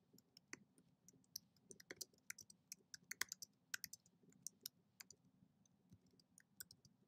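Faint typing on a computer keyboard: a quick, uneven run of key clicks as a line of text is typed.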